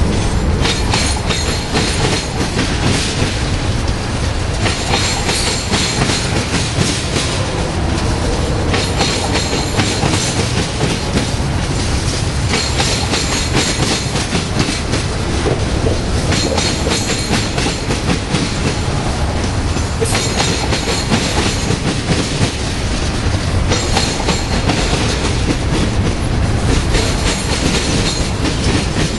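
Freight cars of a Union Pacific manifest train rolling past steadily, their steel wheels clattering over the rail joints and the diamond crossing with the BNSF line. A higher hiss from the wheels swells and fades every few seconds.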